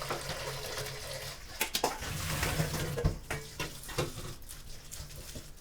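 Water running and splashing as boiled spaghetti is rinsed, with a few light knocks of a pan or utensil in the middle.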